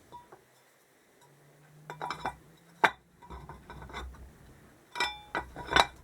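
Metal engine parts and hand tools clinking and knocking against each other, with a few sharp metallic knocks and some scraping in between as parts are handled and fitted.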